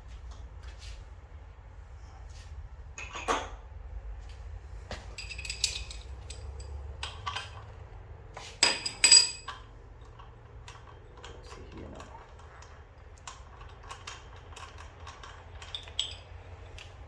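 Metal tools and strut parts clinking and clanking as a car's strut and coil spring assembly is taken apart, with scattered sharp clanks, the loudest a quick pair about nine seconds in, over a faint steady low hum.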